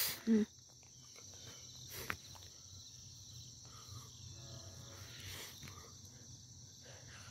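Steady, high-pitched chirring of insects. A short pitched sound comes just after the start, and a faint click about two seconds in.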